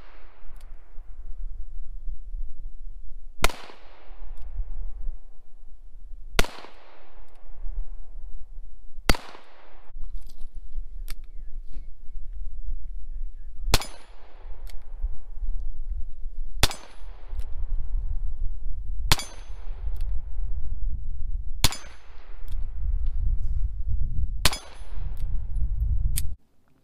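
Eight single shots from a Smith & Wesson .38 caliber revolver, spaced about two and a half to four and a half seconds apart, each with a short echoing tail. Faint clanks of bullets striking steel targets follow several of the shots. A low rumble runs between shots, and the sound cuts off abruptly near the end.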